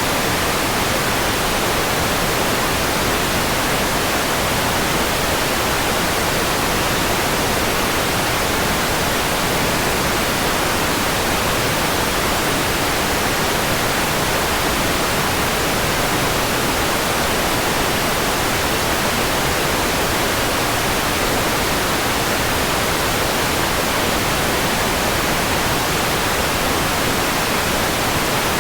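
Steady white noise: an even, unchanging hiss spread across the whole range of pitch, with no tones or breaks.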